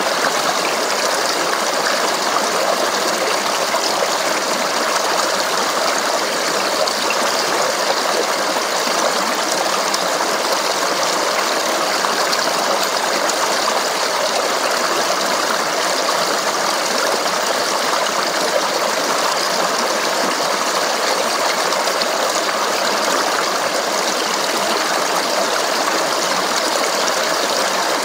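Stream water flowing and babbling over rocks, a steady, unbroken rush.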